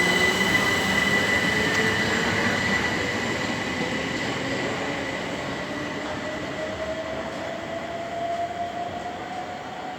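Electric train pulling away from the platform: a whine rises steadily in pitch as it accelerates, over a steady high-pitched squeal, the whole sound fading as it moves off.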